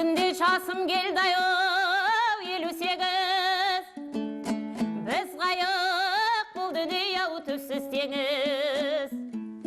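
Kazakh zhyr-terme performance: a voice holding long, wavering melismatic notes over fast strumming on a dombra. There is a short break about four seconds in, and the line resumes with a rising glide.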